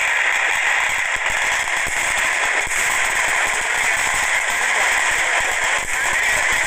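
Fireworks display: a dense barrage of firecrackers and aerial shells crackling and popping without a break, with a faint whistle near the end.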